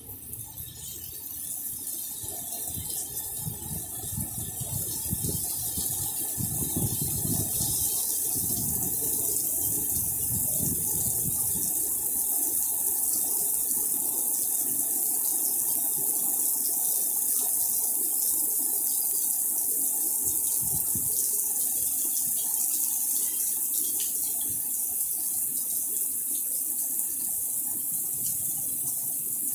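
Steady rain falling on wet pavement, an even hiss that grows louder over the first few seconds and then holds steady.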